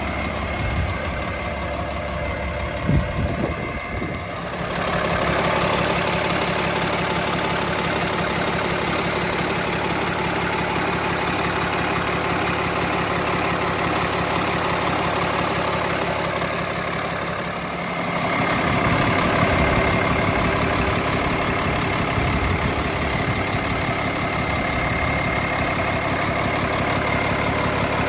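The diesel engine of a 2008 Kenworth T300 medium-duty truck idling steadily. It sounds louder and fuller from about four seconds in, with a few brief knocks just before.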